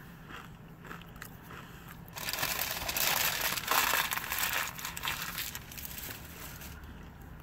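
Crunchy tortilla chips being chewed close up, with faint crunches at first and a loud stretch of crackly crunching from about two seconds in that lasts about three seconds.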